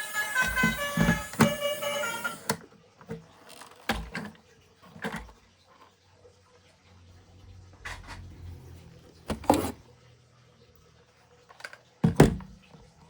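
A short melody that cuts off suddenly about two and a half seconds in, followed by scattered knocks and clicks, the loudest two near the end, over a faint low hum.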